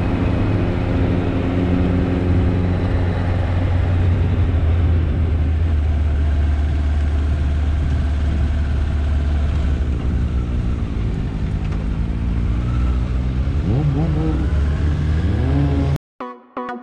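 Wind roar on a helmet-mounted camera over the running inline-four engine of a Suzuki GSX600F motorcycle on the move; near the end the engine pitch rises as it accelerates. It cuts off suddenly to electronic music just before the end.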